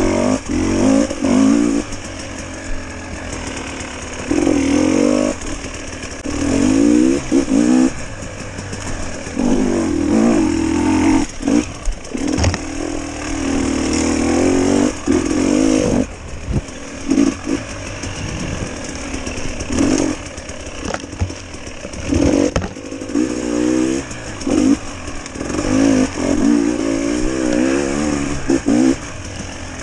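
GasGas enduro motorcycle engine revving in repeated short bursts of throttle, rising and dropping back every second or two.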